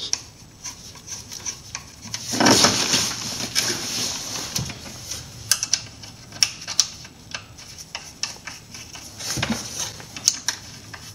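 Scattered light clicks and clinks with rustling as a gloved hand handles the strut mount and threads a nut onto its studs at the top of the strut tower, with a louder rustle about two and a half seconds in.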